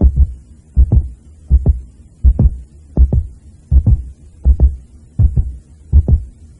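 Loud, steady heartbeat-like double thumps, a lub-dub pair about every three quarters of a second, over a low hum.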